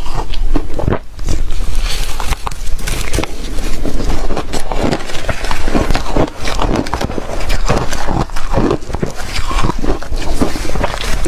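Close-up crunching and chewing of shaved freezer frost ice: dense, irregular crunches with no pause.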